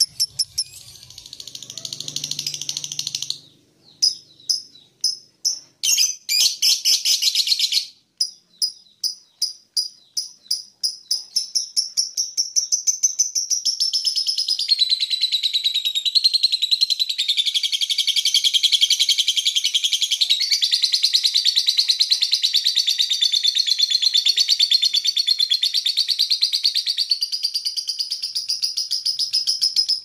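Lovebird singing ngekek, its long, fast, high chattering trill. About four seconds in it breaks into separate bursts, and from about twelve seconds it runs on unbroken.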